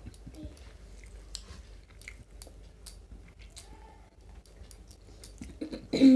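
Close-up chewing and small mouth clicks of people eating rice and fish curry with their hands, with faint irregular ticks and squishes throughout. Near the end a short loud vocal sound that falls in pitch.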